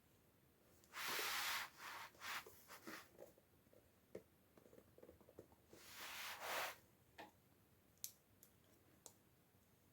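Toy packaging being handled: two short rustles of plastic or paper wrapping, about a second in and about six seconds in, with scattered small clicks and taps of plastic pieces in between and a few sharp clicks near the end.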